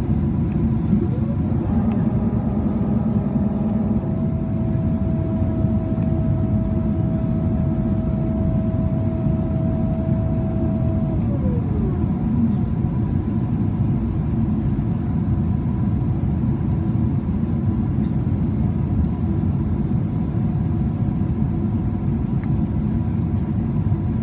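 Steady cabin noise of a Boeing 777-300ER in flight, from airflow and its engines. About a second in, a mechanical whine rises, holds one steady pitch for about ten seconds, then falls away.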